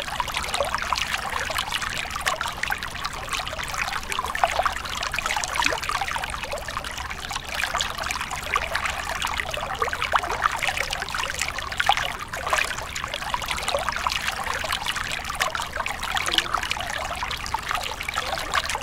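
Water trickling steadily, a continuous flow with many small irregular splashes.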